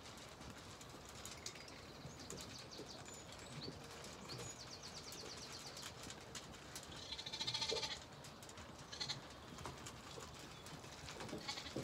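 A Zwartbles sheep bleats once, a short quavering call about seven seconds in.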